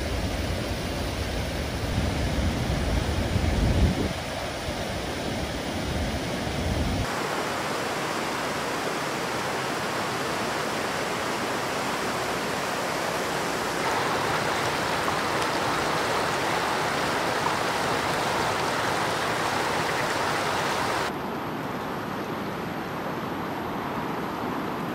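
Steady rush of a small river running over stones and through rapids, its sound changing abruptly a few times. A low rumble sits under the water in the first several seconds, loudest two to four seconds in.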